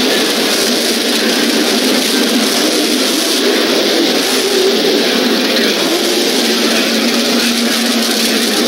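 Drag race cars' engines running loud at the strip, a dense, steady engine noise with a wavering note. A steadier low engine note settles in over the last few seconds.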